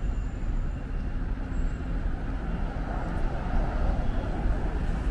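City street ambience of passing road traffic: a steady rumble of vehicles with no single event standing out.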